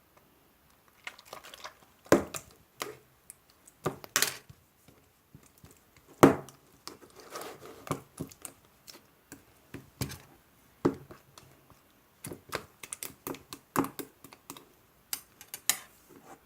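Slime being squished and played with by hand: irregular sticky pops and clicks, with a longer crackly stretch about seven seconds in.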